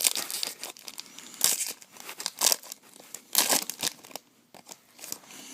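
Foil wrapper of a Bowman Chrome trading card pack being torn open and crinkled, in a run of irregular crackling rustles that tail off after about four seconds.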